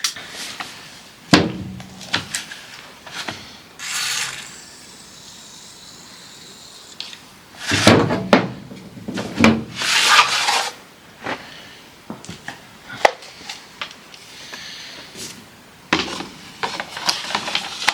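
Hand tools and metal parts being worked on a topper's gearbox: irregular knocks and clicks, with stretches of scraping and rubbing.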